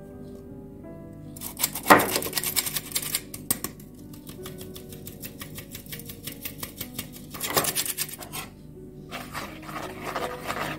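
Hand-crank metal flour sifter clicking rapidly in spurts as it is cranked to sift cacao powder, over background music. Near the end a wire whisk scrapes through the dry flour and cocoa in the bowl.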